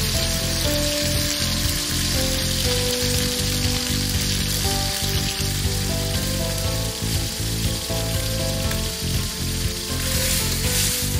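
Sliced pork sizzling steadily in hot oil in a carbon-steel wok, a dense spitting hiss. About ten seconds in the sizzle grows louder as a metal spatula turns the meat.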